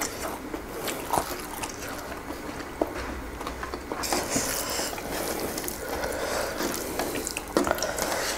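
Close-miked eating sounds: wet chewing of a vegetable and egg meal, with small clicks and taps scattered throughout and a stretch of brighter hiss about four seconds in lasting around two seconds.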